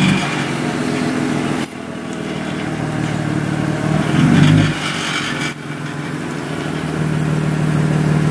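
Lowered BMW E90 rolling slowly at low revs, its engine running steadily, along with a noise the owners call gnarly and cannot place. The sound swells louder with a low rumble about four seconds in, and two sharp clicks come near the second and the fifth-and-a-half second.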